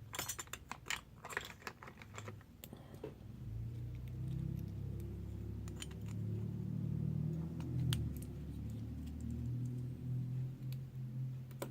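Keys and small metal lock parts being handled: a quick run of light metallic clicks and jingles over the first few seconds, then a low rumbling handling noise with a few scattered clicks while a Kwikset lock cylinder is worked on to remove its core.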